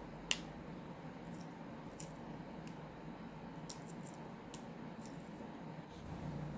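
Faint, scattered clicks and crackles of eggshell being peeled by hand off a hard-boiled egg, with one sharper click about a third of a second in.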